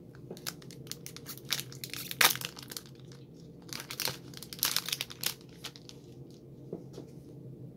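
Foil wrapper of a Magic: The Gathering booster pack crinkling and tearing as it is ripped open by hand: a run of crackles with one sharp snap about two seconds in, going quieter after about five seconds.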